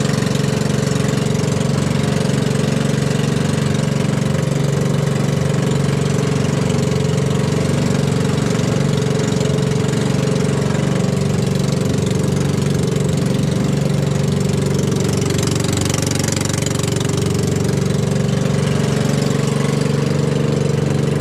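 Engine of a motorized outrigger boat running steadily under way, holding an unchanging pitch, with a constant rushing noise over it.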